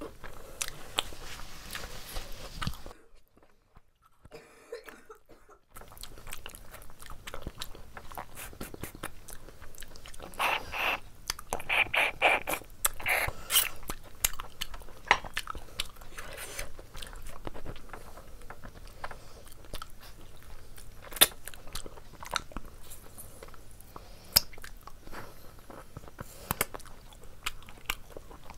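Close-miked chewing and biting of chicken curry and rice eaten by hand: mouth sounds and many sharp clicks, with a short near-quiet pause about three seconds in.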